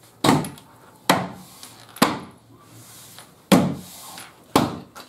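Five knocks on solid pine as the doweled top is struck down by hand onto the unit, seating it on its dowels in a dry fit.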